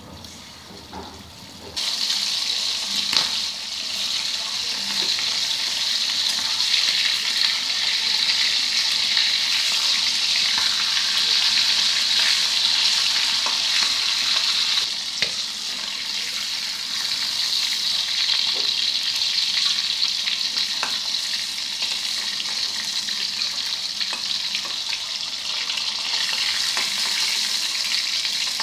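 Marinated quail pieces sizzling loudly as they shallow-fry in hot oil in a metal wok. The sizzle starts suddenly about two seconds in and then holds steady, with a few short clicks of a spatula turning the pieces.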